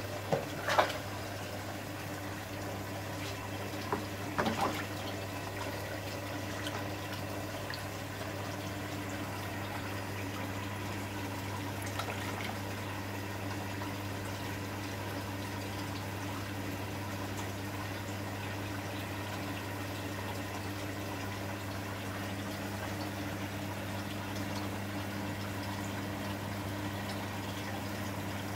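Aquarium filter pump humming steadily while its outlet pours water into the tank, bubbling. A few brief sharp sounds stand out about a second in and again around four seconds.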